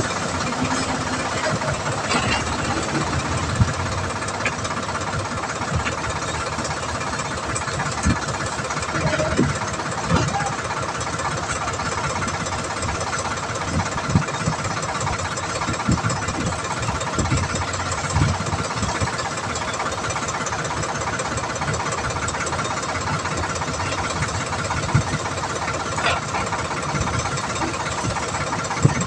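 Diesel engines of a tractor and a backhoe loader running steadily, with scattered low knocks and thumps.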